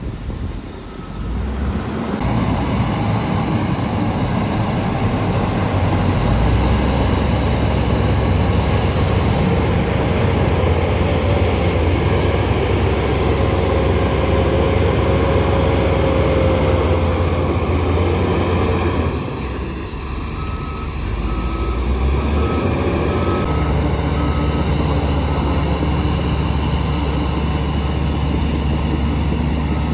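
Heavy diesel engine of earthmoving machinery running steadily under load. It eases off briefly about two-thirds of the way through, then pulls hard again.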